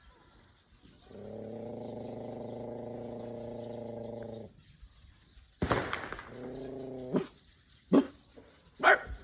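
A sound effect played for a dog: a long buzzing tone held at one fixed pitch for about three seconds. It is followed by a sharp knock, a shorter tone of the same kind, and three sharp clicks near the end.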